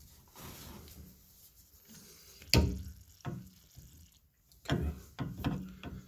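Handling noises at a brass shower valve: one sharp knock about two and a half seconds in, then a few softer knocks, as a flat-ground 1-inch chisel is fitted into the slot of the balancing spool.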